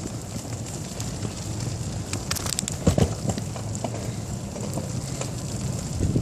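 Bicycle being ridden through snow: a steady low rumble with wind buffeting the microphone, and a quick cluster of clicks and rattles about two and a half seconds in.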